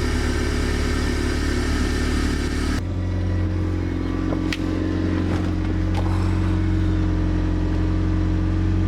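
Toyota MR2 engine idling steadily with an aftermarket cone air filter fitted. The tone changes abruptly about three seconds in, losing its hiss and settling into a steadier low hum, with a couple of faint clicks.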